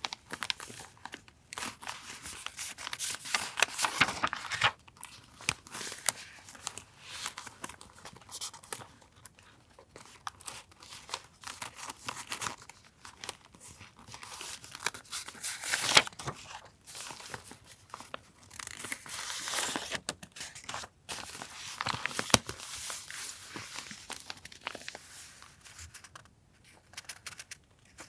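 Paper being handled at a desk: crinkling, rustling and tearing in irregular bursts, with a few sharp clicks.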